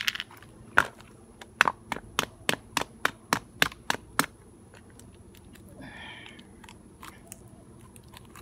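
Plastic cap of a bottle of Spinosad insecticide concentrate being twisted open, giving a run of sharp clicks, about four a second, for about three seconds.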